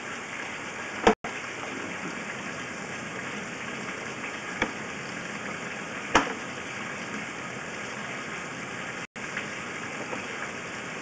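Steady rushing noise of machinery running at the sewer inspection site, with a few sharp clicks about a second in, about four and a half seconds in and about six seconds in.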